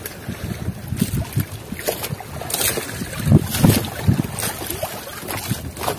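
Water slapping irregularly against a small boat's hull, with wind buffeting the microphone.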